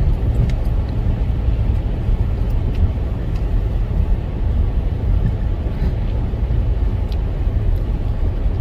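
Steady low rumble of a car driving on a snowy highway, heard from inside the cabin: engine and tyre noise.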